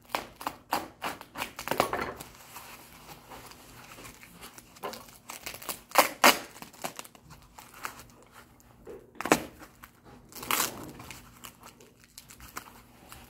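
Plastic and foam packing wrap crinkling and tearing as it is pulled and folded off a boxed part, in irregular bursts, the loudest about six, nine and ten and a half seconds in.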